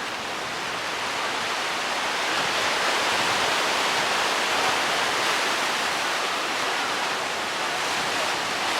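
Ocean waves breaking and washing on the shore, a steady rushing hiss that slowly swells and eases.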